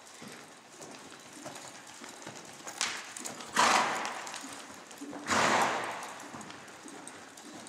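Hoofbeats of a ridden horse moving over arena sand, soft and irregular. About halfway through come two louder rushing noises, each about half a second long and a second and a half apart.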